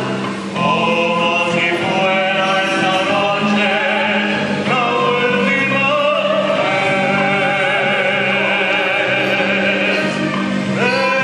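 A man and a woman singing a duet into microphones, holding long notes with vibrato, over a steady instrumental accompaniment.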